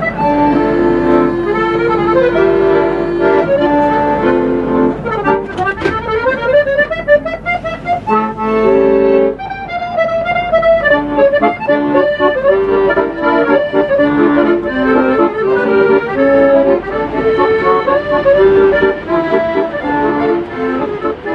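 Accordion playing a tune: a melody over sustained chords, running without a break.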